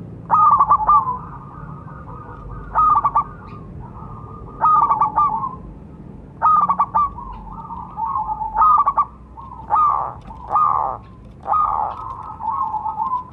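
Zebra dove (perkutut) cooing its song: a phrase roughly every two seconds, each a quick stutter of notes running into a rolling trill. In the last few seconds the phrases come closer together and rougher.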